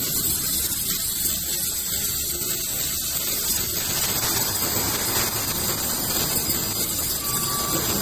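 Handheld laser welding machine running with a steady hiss.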